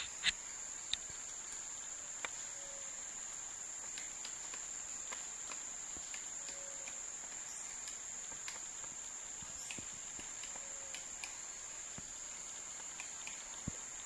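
Steady high-pitched drone of forest insects, with a few sharp, irregular taps from a Cream-colored Woodpecker pecking at bark, the loudest right at the start.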